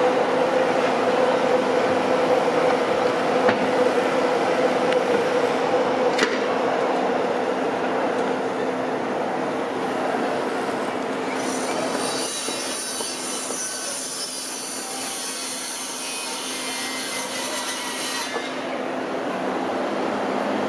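Railway station sounds of commuter trains: a steady low hum eases off over the first several seconds. About halfway through, a high metallic squeal from a train comes in over a faint falling whine, lasts about seven seconds, and cuts off suddenly.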